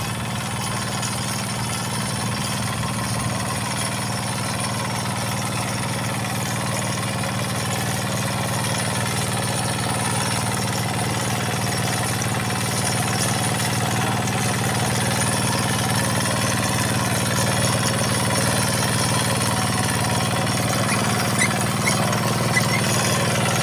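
Kubota walking tractor's (kuliglig) single-cylinder diesel engine running steadily as it pulls a toothed harrow over plowed soil, growing gradually louder as it comes closer.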